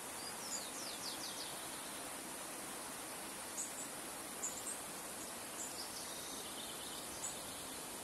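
Shallow river flowing over stones with a steady rush. Small birds call above it: a quick run of high falling notes about half a second in, then scattered short high chips and a brief series of notes through the middle and near the end.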